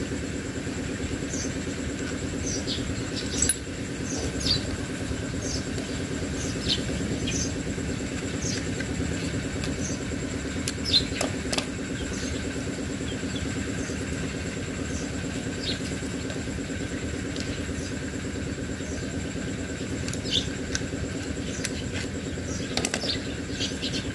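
A steady low machine hum runs throughout, with short high chirps scattered through it and a couple of light clicks about eleven seconds in.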